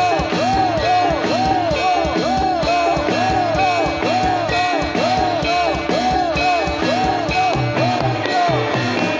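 Live Javanese jathilan ensemble music played loud through a sound system: steady drumming under a short rising-and-falling melodic figure that repeats about twice a second.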